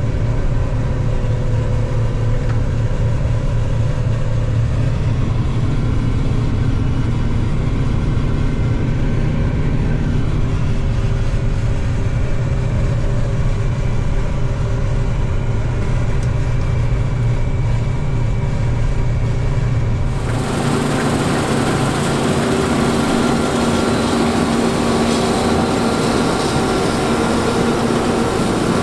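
John Deere 9450 combine running steadily while harvesting wheat, with a heavy low hum and steady tones. About two-thirds of the way through the sound changes abruptly to a brighter, fuller machine noise with several whining tones and less low hum.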